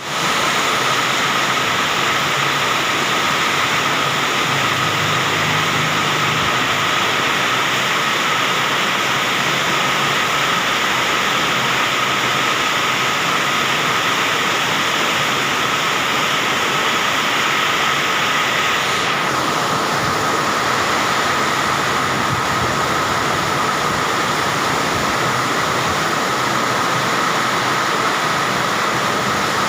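Heavy rain pouring down in strong wind: a loud, steady rushing hiss. The highest part of the hiss thins a little about two-thirds of the way through.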